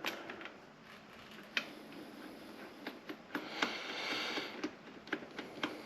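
Faint, irregular small clicks and a brief rustle from a new spark plug being handled and started into the Suzuki RM125's cylinder head by hand.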